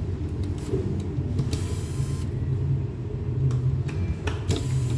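Small electric screwdriver whirring in two short bursts, about a second and a half in and again near the end, backing out the two screws that hold a projector's focus motor, with a few light clicks; a steady low hum runs underneath.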